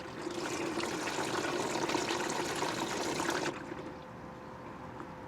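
Engine oil pouring in a steady stream from the drain-plug hole of a 2025 Toyota 4Runner into a drain pan. The stream cuts off suddenly about three and a half seconds in, leaving only a faint steady background hum.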